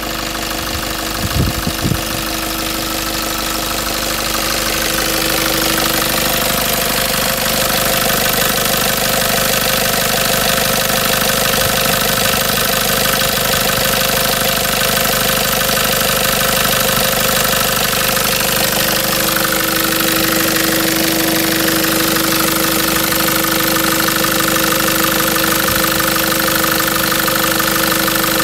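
Nissan ZD30 3.0-litre four-cylinder turbo-diesel in a 2002 D22 Navara, idling steadily with the bonnet open, growing louder over the first few seconds and then holding steady.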